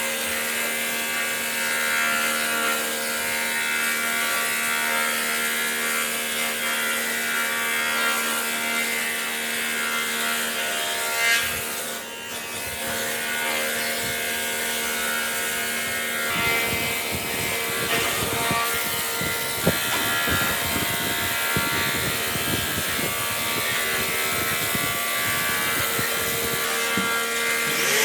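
Electric power tool motor running with a steady hum, dipping briefly about twelve seconds in; from about the middle on it scrapes against wood in irregular strokes.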